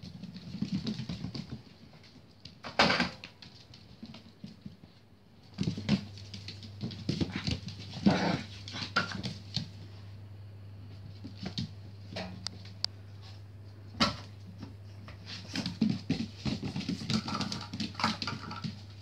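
Cairn terrier puppies playing, giving short barks and whimpers at irregular moments.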